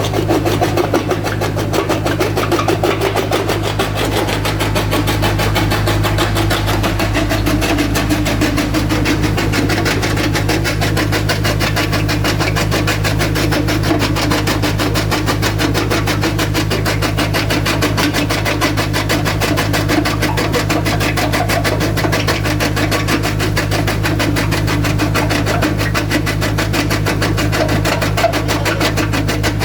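Jaw crusher machine running steadily, a continuous loud mechanical drone with a fast, even pulsing.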